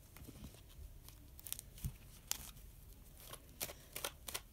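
Tarot cards being handled in the hands: soft, irregular papery clicks and snaps, coming more often in the second half.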